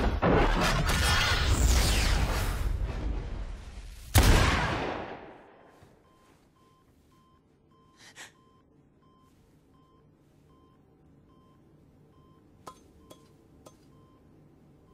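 A loud rushing noise fades over the first three seconds, then a single pistol shot rings out about four seconds in, with a long echo. After it there is a faint regular beeping, a sharp gasp about eight seconds in, and three light taps near the end.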